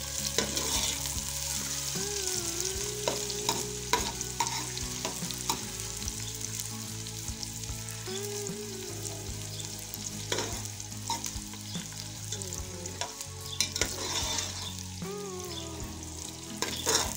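Sliced onions sizzling in hot oil in a steel pot, with a steady hiss, while a steel ladle stirs them and now and then scrapes and clinks against the pot. The onions are being fried toward golden brown.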